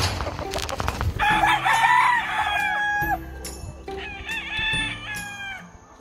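Gamefowl rooster crowing: one loud crow starts about a second in and lasts about two seconds, followed by a fainter second crow about four seconds in.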